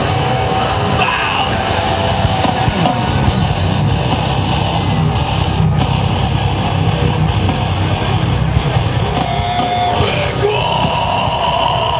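Heavy rock music, with drums and distorted guitars playing loudly and continuously. A long held note rises above the band near the end.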